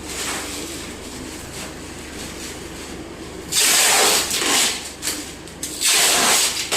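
Packing material being pulled and torn while a refrigerator is wrapped: two loud ripping hisses, the first about three and a half seconds in and lasting over a second, the second shorter near the end.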